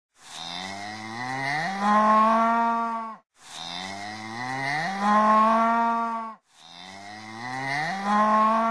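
A cow's moo, the same long call heard three times in a row, each one rising in pitch and then holding steady.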